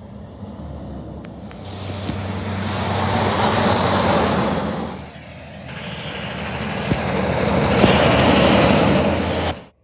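Semi-trucks passing close on a highway, one after another: a diesel engine drone under tyre and wind rush that swells as each truck goes by. Two passes, the first loudest about three to four seconds in, the second near the end, where it cuts off suddenly.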